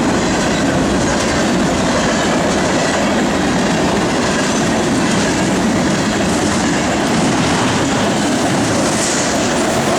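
Union Pacific mixed freight train's cars rolling past, a loud, steady rumble and rattle of wheels on the rails.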